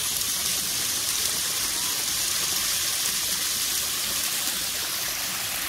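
Small waterfall splashing steadily into a pond, an even rush of falling water.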